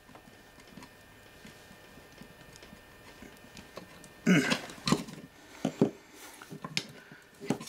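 Faint handling noise while a small stuck screw is worked with a hand screwdriver. Then, a little past halfway, a run of sharp knocks and clatters as the tape drive's metal chassis is handled on the table.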